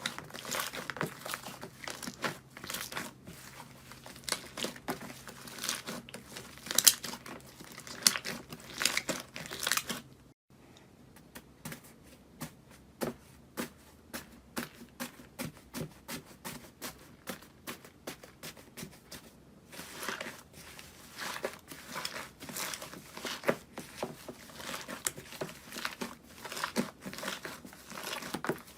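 Slime being squished and played with, making dense crackling, popping clicks. About ten seconds in the sound cuts, then runs sparser and quieter before turning dense again near twenty seconds.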